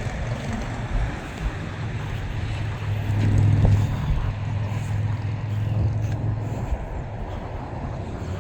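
Outdoor background noise with a motor vehicle's low engine hum that swells about three seconds in and fades out around seven seconds.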